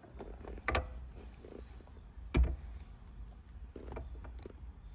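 Short knocks and clicks of a short-throw shifter being handled and fitted into place, with a sharper knock about two and a half seconds in.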